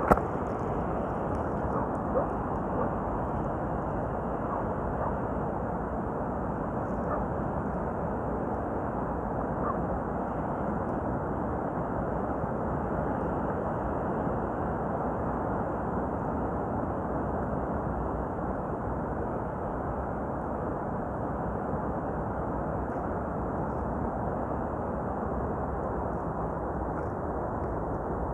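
Steady, even rushing of sea surf breaking along the shore, with no distinct events.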